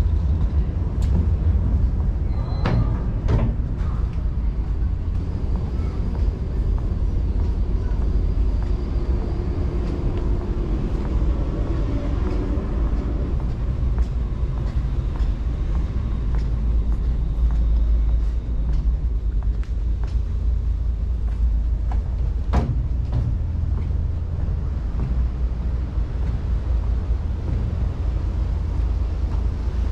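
Steady low rumble of a car ferry's engines heard on board, with a few sharp knocks about three seconds in and one more about three-quarters of the way through.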